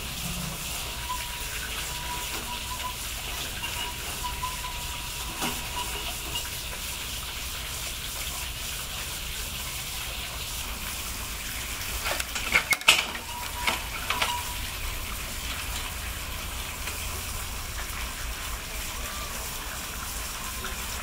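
American tapir pulling and chewing chickweed, a steady soft crackle and rustle of leaves. There is a short run of louder sharp clicks about twelve seconds in.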